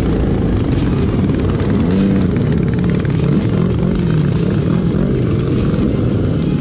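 Motorcycle engines in a group ride under way, the nearest engine's pitch rising and falling as it is revved through the gears, over steady wind and road rush.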